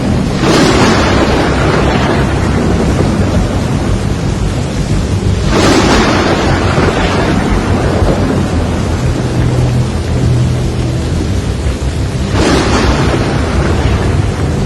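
Thunderstorm: a steady wash of heavy rain and wind, broken by three sudden loud thunder cracks, each fading over a couple of seconds. The cracks come just after the start, about five and a half seconds in, and near the end.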